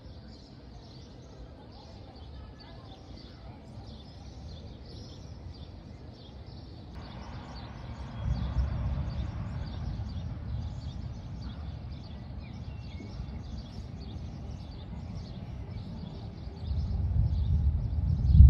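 Distant thunder rumbling deep and low, once about eight seconds in and again, louder, near the end, over birds chirping.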